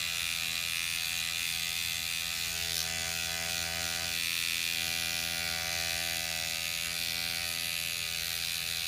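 Rejuvapen motorized microneedling pen running with a steady buzz.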